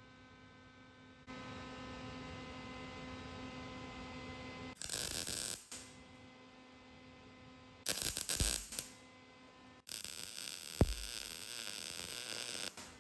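MIG welder arc crackling in three bursts, the last and longest about three seconds, as weld is laid onto a broken, drilled-out exhaust manifold bolt to build it up for extraction; a sharp pop during the last burst. A steady electrical hum sounds between the bursts.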